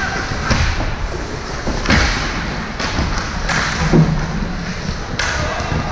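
Dull thuds and knocks from play during a game, a few seconds apart, the loudest about four seconds in, over a steady noisy background from the venue.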